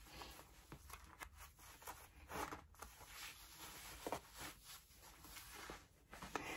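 Faint, irregular rustling and scuffing of clothing as a pair of jeans is pulled up and adjusted at the waist.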